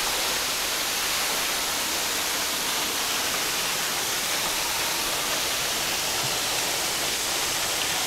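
Steady rushing of Cucumber Falls, a narrow waterfall splashing onto the rocks and pool at its base.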